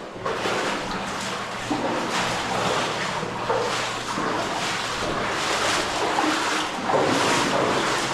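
Water splashing and rushing in uneven surges.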